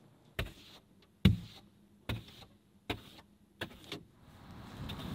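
A snow scraper clearing a snow-covered car windshield, heard from inside the car: six short scraping strokes under a second apart. Near the end a steady hum of the running car comes up.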